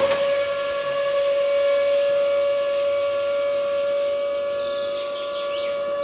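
Small DC electric motor on a homemade toy rig, spinning up right at the start, then running with a steady, even-pitched whine.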